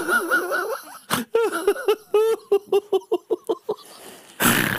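Men laughing hard: pitched vocal bursts that turn into a rapid run of about six short bursts a second midway, with a short loud breathy burst near the end.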